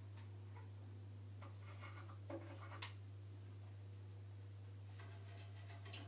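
Steady low hum with a few faint, short calls from African grey parrots: a cluster about two to three seconds in, and a soft held note near the end.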